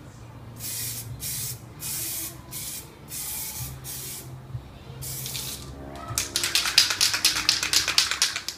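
Aerosol can of Carlas rubber film coating spraying in short hissing bursts, about seven of them over the first five seconds. About six seconds in, a fast clattering rattle takes over as the can is shaken and its mixing ball knocks inside.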